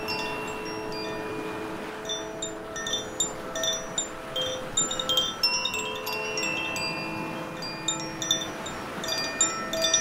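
Koshi "Air" wind chime ringing, its tuned metal rods struck by the inner clapper in quick flurries of overlapping, lingering notes, busiest through the middle and again near the end. Beneath it runs the steady wash of waves breaking on rocks.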